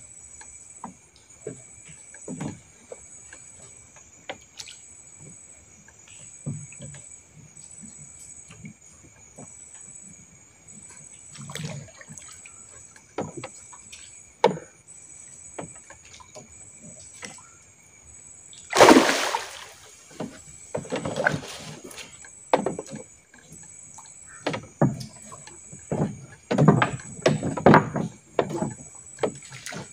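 A hooked mangrove jack splashing at the surface beside a small boat as it is fought on a rod. One big splash comes about two-thirds of the way through, and more splashing follows near the end as the landing net goes into the water. Scattered knocks against the boat and a steady high insect whine run underneath.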